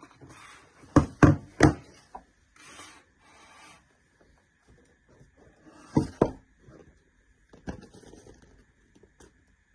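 Packaging and parts being handled during an unboxing: rubbing and scraping, with three sharp knocks in quick succession about a second in and two more about six seconds in.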